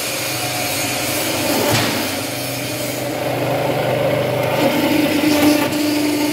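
Automatic punching and roll-forming line running: a steady mechanical hum with one knock a little under two seconds in, and a higher steady tone joining about three-quarters of the way through.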